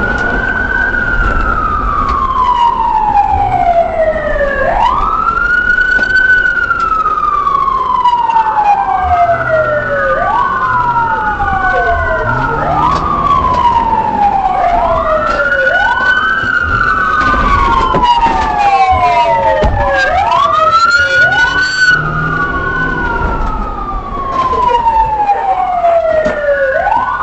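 Two police car sirens wailing out of step. Each rises quickly and falls slowly over about four seconds, repeating, with a low rumble underneath.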